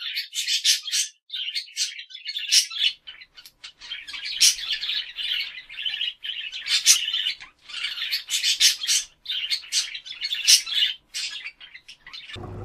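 Parrots calling: a rapid, continuous string of short, shrill chirps and squawks.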